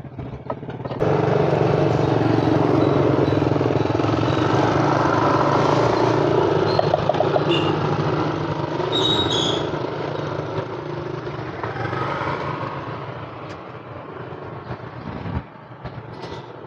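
A motor vehicle engine running loud, starting suddenly about a second in and slowly fading away over the next dozen seconds.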